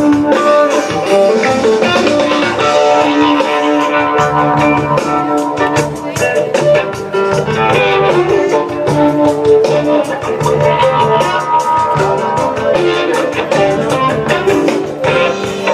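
Live rock band playing at a sound check, with guitar over a drum kit and no vocals.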